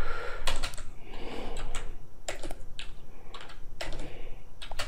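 Typing on a computer keyboard: irregular key clicks as a terminal command is entered and edited.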